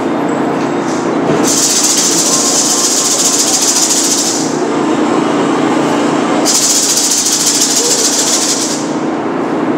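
A hand rattle shaken fast and without a break in long spells of two to three seconds, with pauses of about two seconds between them.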